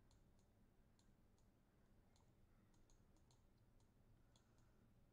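Near silence, with faint, irregular light clicks of a stylus tapping on a pen tablet while handwriting.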